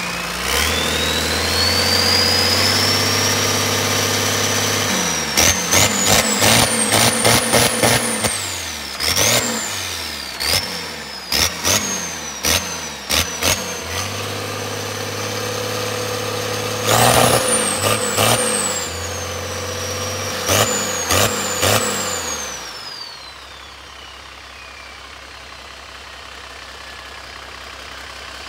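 Cummins diesel engine on a test run, held at high revs and then blipped hard again and again, with a high whine that climbs, peaks and falls with each burst. About 23 seconds in it winds down and settles to a steady idle.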